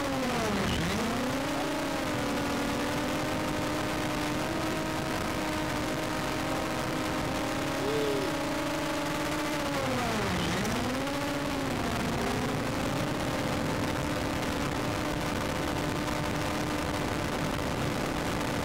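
A motor running at a steady pitch with strong overtones. Its pitch dips sharply and recovers twice: about a second in and again around ten seconds in.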